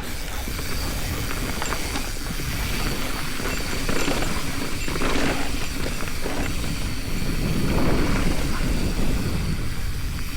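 Mountain bike riding fast down a rough dirt trail: wind rushing over the microphone with a steady low rumble, and the tyres and bike rattling over the ground, swelling and easing in strength.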